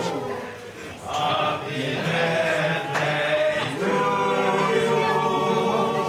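A group of voices singing a birthday song together in a choir-like, chanting style, with a short break between phrases about a second in.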